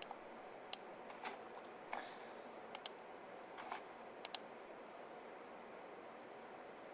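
A handful of sharp clicks at a computer desk, two of them in quick pairs, over faint steady room hiss.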